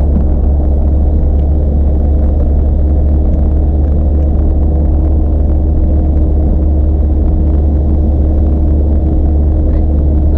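Steady low drone of a vehicle being driven: engine hum and road rumble.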